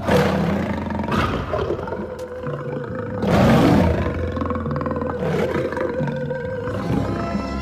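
Lion roar, the loudest sound, about three seconds in, over a cinematic music score with a long held note. A sudden loud hit sounds right at the start.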